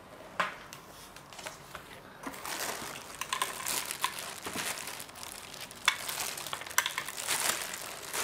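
Plastic packaging crinkling and rustling as it is handled during unpacking, growing busier about two seconds in, with a few sharp clicks mixed in.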